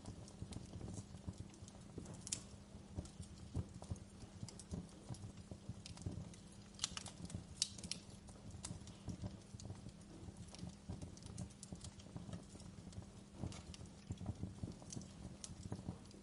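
Wood fire in a fireplace crackling: irregular sharp pops and snaps from burning logs, with a few louder snaps about seven to eight seconds in, over a low steady rumble of the flames.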